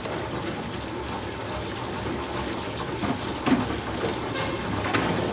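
Steady rain falling, with a couple of short knocks about three and a half and five seconds in.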